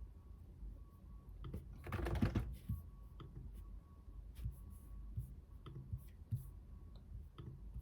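Typing on a computer keyboard: a quick flurry of keystrokes about two seconds in, then scattered single key presses.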